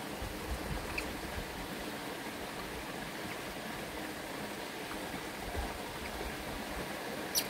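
Steady rushing of a stream or running water, with a few faint ticks about a second in and a sharp click near the end.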